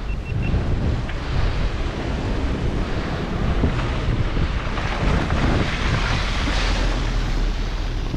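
Wind buffeting the camera's microphone while the bike is ridden: a steady, loud rushing noise with a heavy low rumble.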